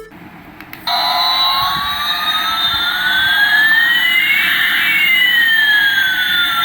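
Electronic sweep effect: about a second in, a hiss starts together with two tones, one rising slowly and the other falling, which cross midway and carry on.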